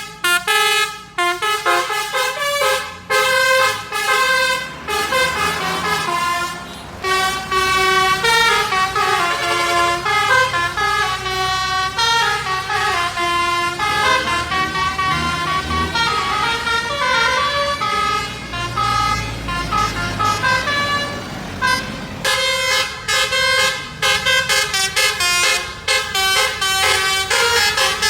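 Bus 'telolet' horn: a set of electric air horns playing a quick multi-note tune, the notes stepping up and down in short blasts, with a low bus engine rumble underneath.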